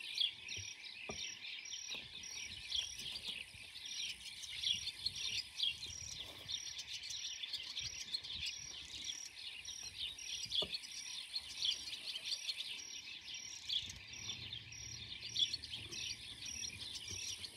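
A colony of blue-cheeked bee-eaters calling continuously, many short rolling calls overlapping into a dense chorus, with a fainter high pulsing about three times a second underneath.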